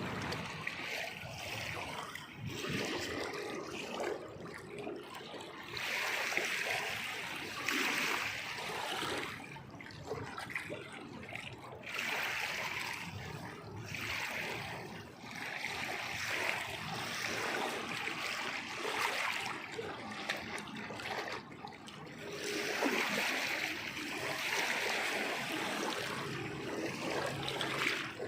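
Water splashing and sloshing without a break, swelling and easing every second or two.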